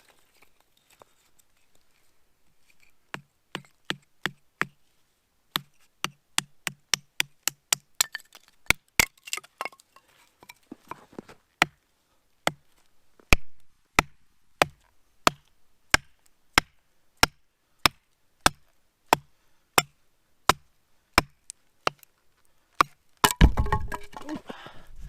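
A long series of sharp knocks of wood being chopped or split for a campfire, settling into a steady rhythm of about one every 0.6 s. Near the end a louder continuous rushing noise cuts in suddenly.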